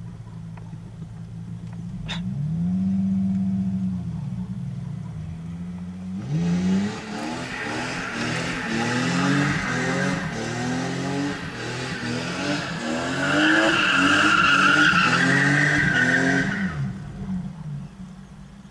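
BMW E30 doing a burnout: the engine idles and blips once, then from about six seconds in it is revved up and down over and over as the rear tyres spin and squeal. The squeal is loudest near the end, then the engine drops back to idle.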